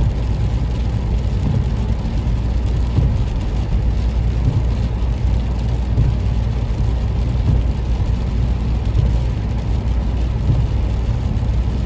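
Steady low rumble of a car's engine and tyres on a wet road, heard from inside the moving car, with rain on the windscreen.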